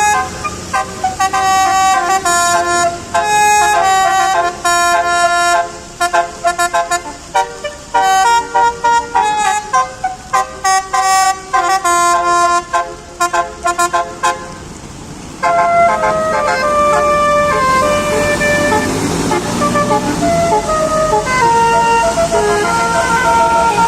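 Indonesian bus 'telolet' basuri multi-tone air horn playing a fast melody of short stepping notes, which breaks off about 14 seconds in. About a second later a horn plays a second melody of longer, sliding notes, with a bus engine revving up underneath.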